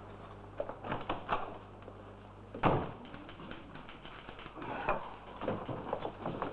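A few light clicks, then a door banging shut, followed by quick irregular footsteps on a hard floor.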